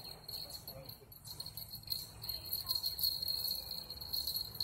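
Insects trilling steadily, a high continuous buzz that pulses rapidly without a break.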